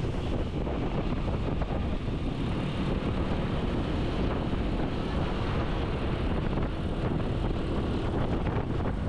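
Steady drone of a moving vehicle with wind rumbling on the microphone.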